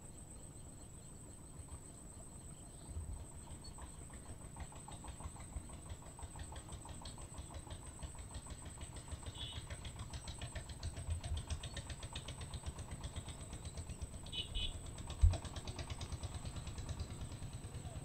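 A distant engine running with a rapid, even throb that grows somewhat louder after the first few seconds, over a steady high-pitched whine. One sharp thump comes about fifteen seconds in.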